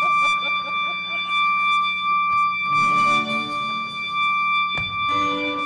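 Music: a long held high note runs throughout, with a few more pitched notes joining about halfway in and again near the end.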